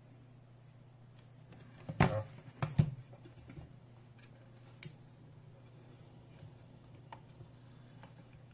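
Aluminium tablet holder being handled: a few sharp knocks and clicks as its jointed arm and clamp are moved, the loudest two about two and three seconds in and a lighter one near five seconds, over a faint steady low hum.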